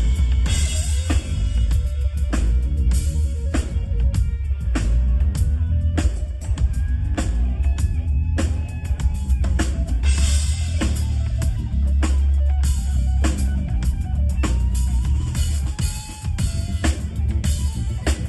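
Live band music with the drum kit to the fore: frequent kick and snare hits over a strong bass line and other pitched instruments.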